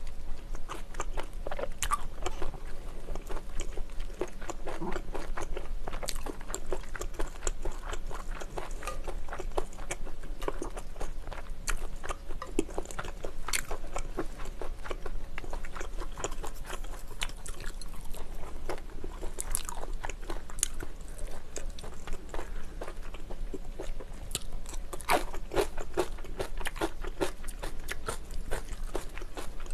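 Close-miked chewing of spicy tteokbokki (rice cakes, glass noodles and clams): a steady run of small mouth clicks and smacks.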